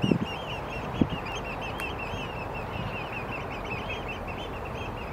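A flock of Eurasian oystercatchers calling without pause, many short high piping calls overlapping into a chorus over a steady rushing background. Two dull low thumps come right at the start and about a second in.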